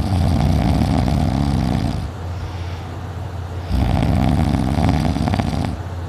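Snoring in deep sleep: two long, rattling snores of about two seconds each, one at the start and one beginning nearly four seconds in, with a quieter breath between.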